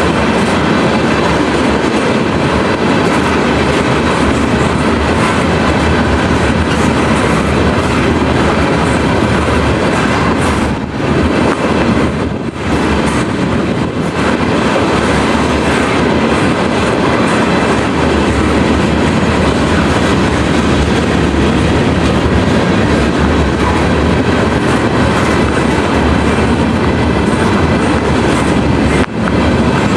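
A train rolling past, with a steady loud rumble and the clatter of its wheels on the rails. The sound dips briefly a few times.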